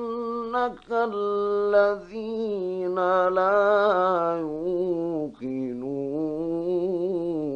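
A man reciting the Qur'an in the melodic mujawwad style, drawing out long held notes with a wavering ornament in several breath-long phrases. The melody steps down to a lower pitch in the last couple of seconds.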